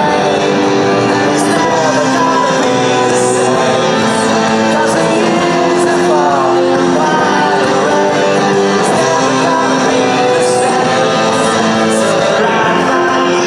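Rock song playing loudly: a voice singing over guitars with a steady beat.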